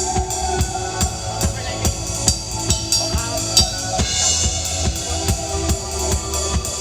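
Reggae music played on drum kit and bass: a steady beat of kick, snare and cymbals over a bass line, with a brighter cymbal wash about four seconds in.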